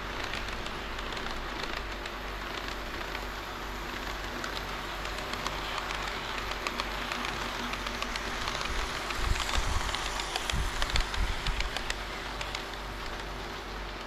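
HO-scale model train running along the track: a steady rolling rush of wheels on rail, dotted with small clicks as the wheels cross rail joints. It gets louder, with more clicks, from about nine seconds in, as the train comes closer.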